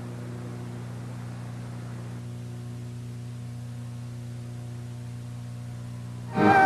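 Steady electrical hum with faint hiss, the background noise of an old broadcast tape recording during a blank gap; music starts suddenly right at the end.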